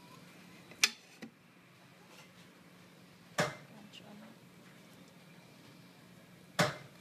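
Metal spoon clinking and scraping against a stainless steel plate while flaking cooked fish off the bone: three sharp clinks, about a second in, midway and near the end, with a fainter tap just after the first.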